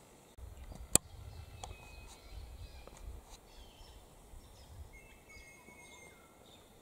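Bush birds calling: scattered short chirps and thin high whistles over a quiet background. A single sharp click about a second in is the loudest sound, and a low rumble runs through the first few seconds.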